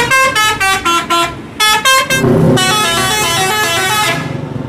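Bus musical multi-tone horns ('telolet' horns) playing quick stepping tunes, one tune, a brief pause about a second and a half in, then another. Under the second tune comes the low rumble of a bus engine passing close.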